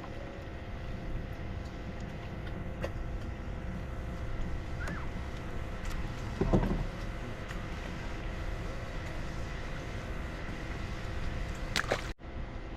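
Boat motor running steadily on the water, a constant hum with low wind and water rumble. A short louder knock comes about six and a half seconds in.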